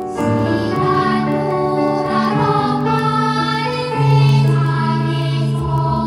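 A group of children singing a children's song together over instrumental accompaniment, the voices coming in right at the start after a piano introduction.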